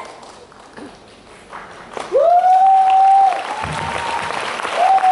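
Audience applauding and cheering in a large hall, starting about two seconds in. Two long held shouts ring out over the clapping, one as the applause begins and another near the end.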